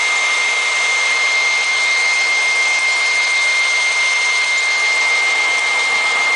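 A blower running steadily with a high whine, blowing air onto a wooden whirligig to turn its propeller.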